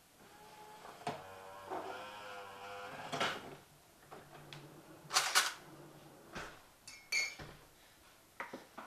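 Siemens bean-to-cup coffee machine being set up for a coffee: a short steady whirr, then clinks and knocks as a cup is put under the spout, and taps on the touch panel with a brief beep.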